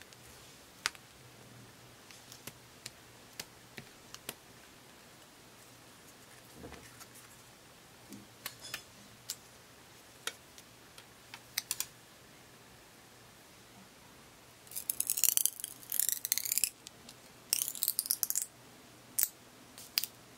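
Dry barley straw being flattened by hand: scattered light clicks and taps from the straws, then about four seconds of dense, crisp crackling and scraping as the straw is rubbed flat, and a couple more clicks near the end.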